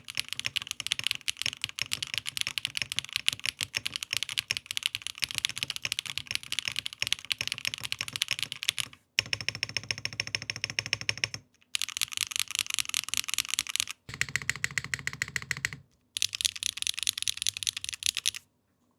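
Fast, continuous typing on a mechanical keyboard with 80Retros KD400 switches: rapid clacking keystrokes in several long runs, broken by short pauses, stopping shortly before the end.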